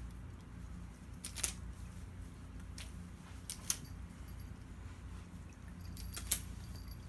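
Two cats leaping and pouncing at a feather cat-teaser wand on a hard floor: four short, sharp clicks and scrapes from paws, claws and the toy, over a low steady room hum.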